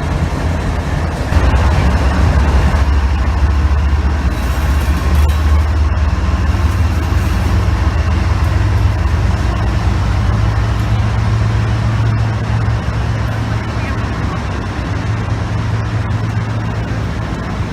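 Freight train moving slowly past at close range: a steady low rumble that gets louder about a second in.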